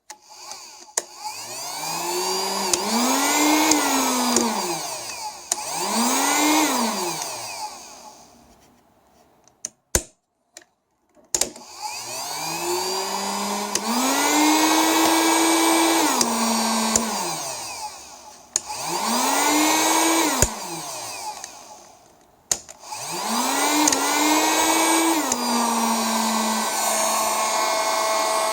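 TOPSHAK TS-HG1 2000 W hot air gun's fan motor spinning up and winding down five times, with switch clicks between runs. Its pitch sometimes jumps up or down a step partway through a run as the setting changes. This is the gun's faulty switch being demonstrated.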